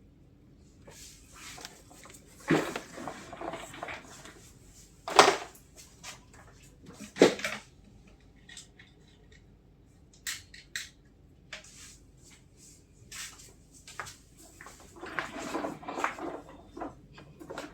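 Tools and small parts being handled on a workbench: scattered clicks, taps and light clatter, with three sharper knocks in the first half and a longer stretch of rustling and clatter near the end.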